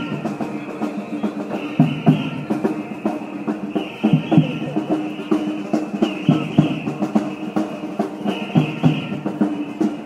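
Drums beating at a street demonstration, with many sharp hits and a phrase that repeats about every two seconds.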